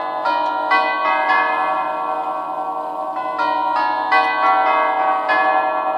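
Herschede 'Sheffield' Model 230 grandfather clock (circa 1970) chiming a melody on its nine tubular bells. Hammers strike the tubes one after another, about every half second in groups, and each note rings on under the next.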